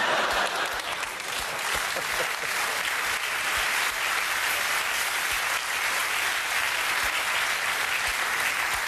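Studio audience applauding steadily, many people clapping at once in response to a punchline.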